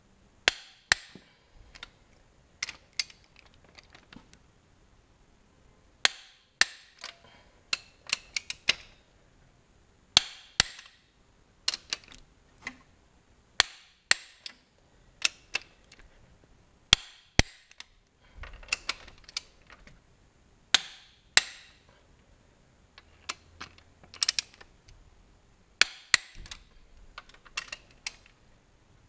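Click-type torque wrench on a Mitsubishi 4G63 engine's ARP head studs, giving sharp clicks singly and in quick clusters every second or two as it breaks over at the set final torque of 108 Nm and is ratcheted back.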